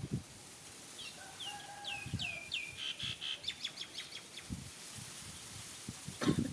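A bird calling: a run of short falling chirps that come faster and faster and end in a quick trill. A few low thumps are heard, the loudest near the start and near the end.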